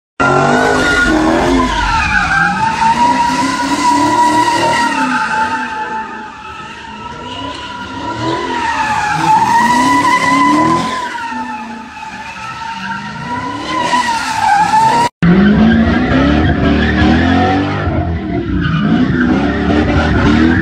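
A car doing donuts: its tyres squeal in a long wavering whine while its engine revs rise and fall underneath in repeated swells. After an abrupt cut about 15 s in, engine revving is louder and heavier, and the squeal is weaker.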